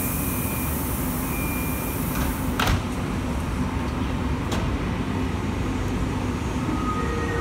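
Sliding door of an SBB RABDe 500 tilting train closing: a high hiss ends in a sharp thud about two and a half seconds in, followed by a lighter click, over the steady low rumble of the standing train. Near the end a faint whine sets in as the train gets ready to pull away.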